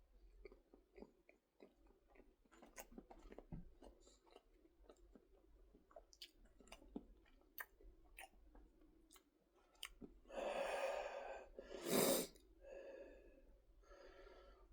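A person chewing a Lunchables cracker pizza close to the microphone, with soft crunching and many small wet mouth clicks. Near the end come two loud breaths, the second shorter and stronger.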